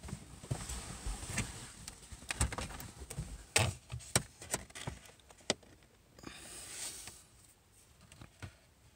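Handling noise from a phone camera held close to a car's dashboard: scattered light clicks and knocks, then a brief rustle about six seconds in.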